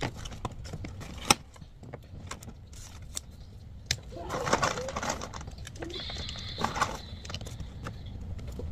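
Cellophane wrapping crinkling, with small clicks and taps as craft pieces are handled on a table; one sharp click about a second in, and a thin steady high tone for about two seconds near the end.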